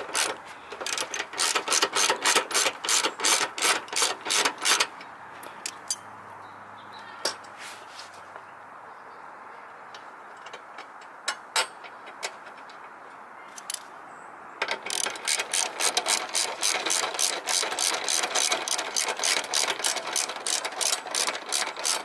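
Hand ratchet clicking rapidly, about ten clicks a second, in two long runs: one in the first five seconds and one from about two-thirds of the way in to the end, with a few single clicks in the quieter stretch between.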